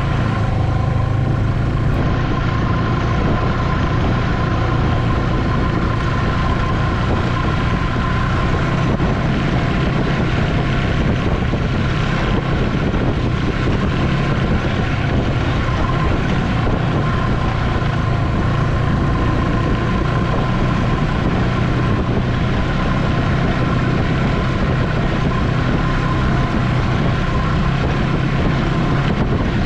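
Ski-Doo Expedition SE snowmobile running at a steady trail-riding speed, heard from on board the sled: an even engine-and-track drone with a thin steady tone over it.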